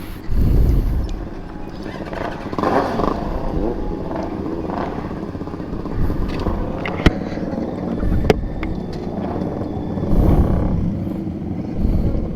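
Motorcycle engines running during a ride, swelling louder a few times as the throttle opens. Two sharp clicks sound briefly in the middle.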